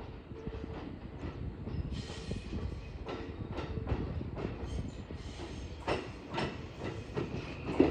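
A train running on the rails: a steady low rumble with irregular wheel clacks that begin about three seconds in.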